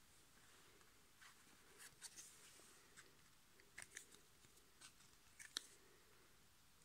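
Faint, scattered clicks and rustles of cardboard football trading cards being picked up, flicked and turned over by hand, the sharpest click about five and a half seconds in.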